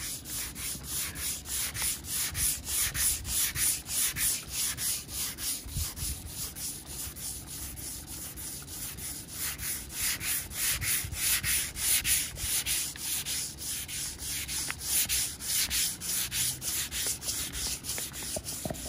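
Sandpaper on a hand sanding block rubbed back and forth over the painted roof of a BMW E46, about three rasping strokes a second. The bubbled paint is being sanded down toward the primer.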